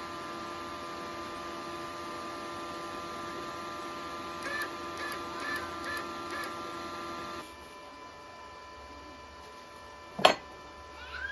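The wire-feed motor of a Parkside PIFDS 120 A1 flux-core welder runs with a steady whine as the welding wire feeds out through the gun's contact tip, and stops about seven seconds in. A single sharp click comes near the end.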